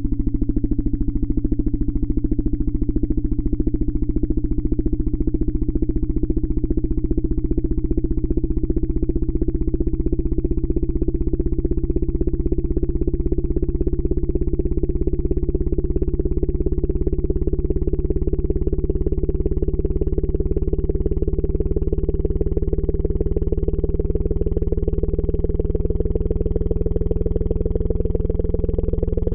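Harsh, steady synthetic buzz: a fast, even pulsing drone at constant loudness that grows slowly brighter, played as a hearing-test sound.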